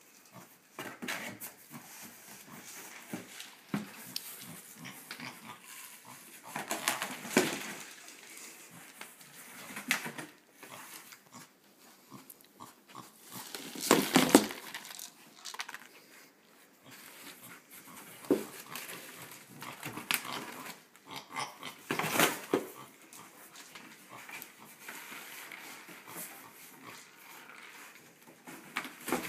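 Pot-bellied pig snuffling as it noses and shoves a cardboard box, the cardboard scraping and knocking in irregular bursts, the loudest about seven, fourteen and twenty-two seconds in.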